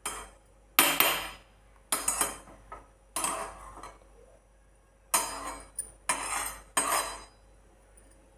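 Metal spoon clinking and knocking against a kitchen vessel, about eight irregular clinks, each ringing briefly, as half a tablespoon of ghee is spooned out.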